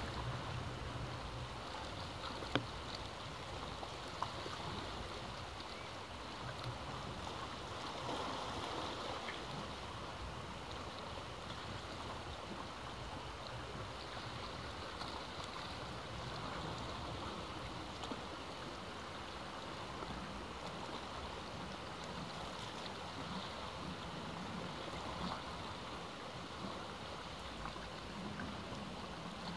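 Ocean surf washing steadily, its level swelling and easing slowly. A sharp click comes about two and a half seconds in, and a fainter one a couple of seconds later.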